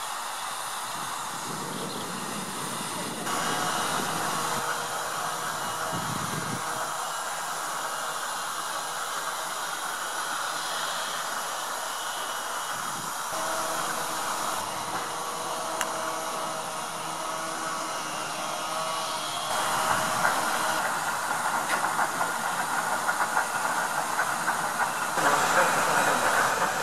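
Steady hiss of escaping steam from a standing steam tank locomotive, growing louder and more uneven over the last several seconds.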